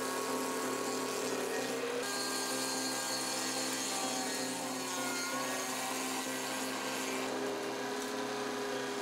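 Gandini Meccanica Castor stump grinder's cutting head grinding down a tree stump, a steady machine whir with the grinding of wood going on throughout.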